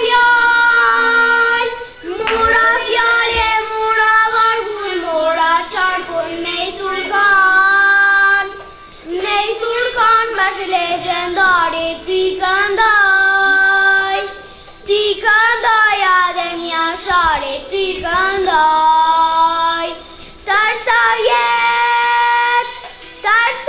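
A young girl singing solo, in phrases of long held notes with short pauses between them.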